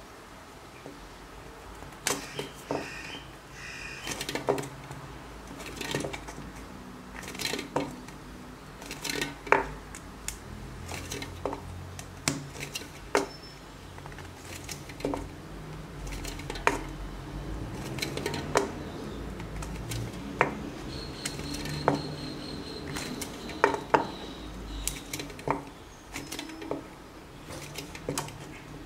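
A wooden block pressed and knocked against the rim of a thin aluminium can, giving irregular sharp metallic clicks and taps.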